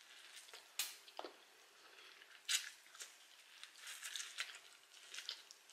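Faint, wet mouth clicks and smacks of someone biting and chewing boiled corn on the cob, a few sharper clicks at irregular intervals.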